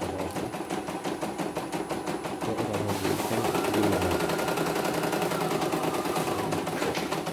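CNY E900 embroidery machine stitching, its needle working in a fast, even run of strokes while the hoop moves.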